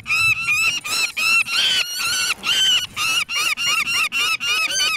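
Young peregrine falcons calling in rapid, repeated calls, about four a second, with a couple of longer, drawn-out calls near the middle. These are the noisy protests of nestlings being handled for leg banding.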